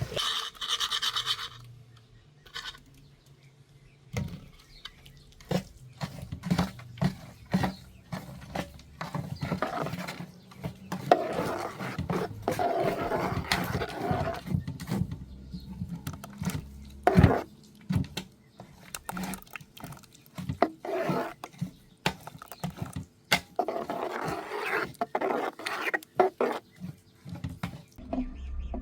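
Scraping and rubbing, broken up by many sharp knocks and clicks, with a low steady hum under it.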